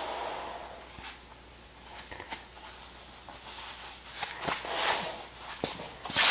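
A person moving close by: a few soft footsteps and clothing rustles with scattered light clicks. A louder brief swish comes near the end.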